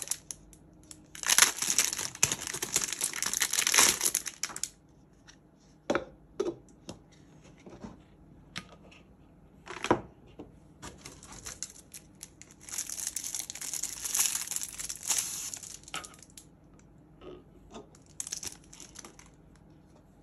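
Packaging being handled and opened: crinkling, tearing rustles in two long stretches of a few seconds each, with a shorter one near the end and short clicks and taps in between.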